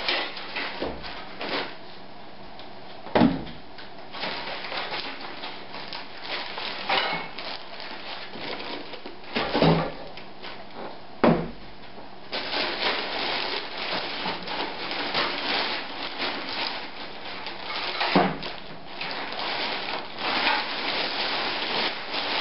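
Unpacking a PC case: foam end caps and the case knocked and set down on a table a few times, then the plastic bag crinkling steadily as it is pulled off the case.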